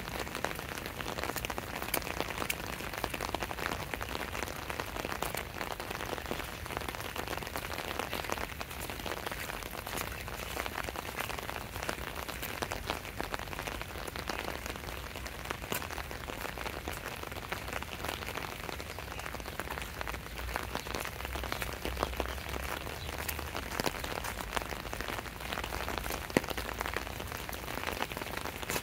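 Steady rain falling, with a dense patter of individual drops ticking close by.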